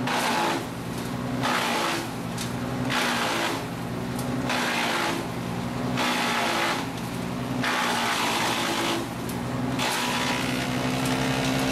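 Petrol-engined Rayco wood chipper running at a steady engine note while it chips a branch being fed into it, the chipping coming in loud bursts about every second and a half as the drum bites into the wood.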